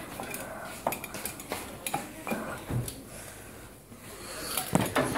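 Handling noise: a string of light clicks and knocks from small hard objects being moved about, over the rustle of a phone rubbing against clothing and hair, with a louder pair of knocks near the end.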